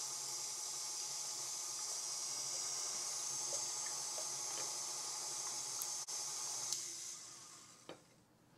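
Stand mixer running steadily, its beater mixing the wet batter of eggs, almond milk, sweetener and melted butter. It is switched off about seven seconds in and winds down to quiet.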